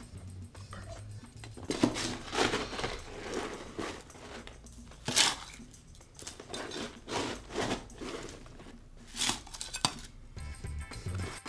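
Crushed ice being scooped from a canvas Lewis bag with a metal scoop and tipped into a metal cocktail shaker tin: irregular clinks and rattles of ice on metal with rustling canvas, the loudest clatters about two, five and nine seconds in. Near the end the shaker is closed with its top piece.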